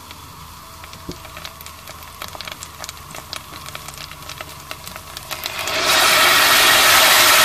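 Tomato paste frying in hot oil in a pan, with many small crackles and pops. About six seconds in, puréed tomato is poured onto the hot oil and a loud, even sizzling hiss takes over.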